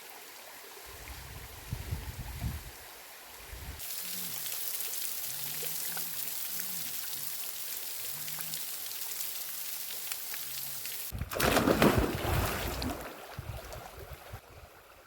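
Rushing water of a waterfall, a steady hiss that comes in suddenly about four seconds in. Low rumbling knocks come before it, and a louder low rumble comes near the end.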